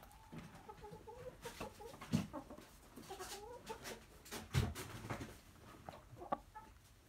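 Brown hens clucking softly in a run of low, wavering calls through the first half, with a few sharp taps, the loudest a little past halfway.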